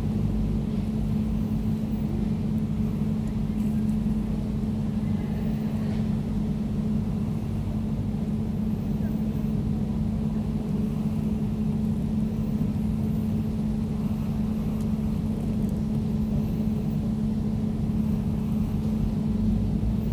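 Air conditioner running steadily: a constant low hum with a droning tone and a rumble beneath, unchanging throughout.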